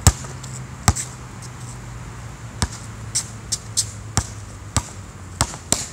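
A basketball being dribbled on an outdoor hard court: about ten sharp bounces at an uneven pace, the first one the loudest. A faint steady low hum runs underneath.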